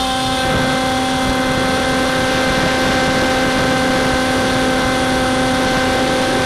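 Electric motor and pusher propeller of a Multiplex EasyStar RC plane running at a steady high throttle during the climb-out after launch. One unchanging pitched whine over a steady hiss.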